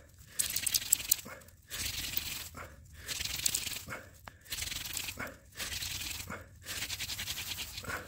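Hand-drill friction fire: a high bush cranberry spindle spun between the palms, grinding into a piece of chaga mushroom as a dry rasping hiss. It comes in runs of about a second, six or so, each broken by a short pause.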